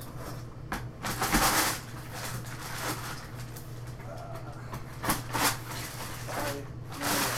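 A large cardboard shipping box being opened by hand: tape tearing off the seam, flaps pulled open and crumpled packing paper rustling, in several loud bursts, the biggest about a second in.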